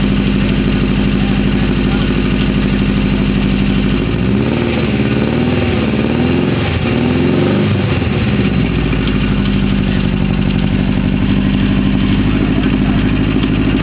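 Freshly rebuilt Mustang engine running at a steady idle; for about five seconds in the middle its speed rises and falls unevenly before settling back to idle.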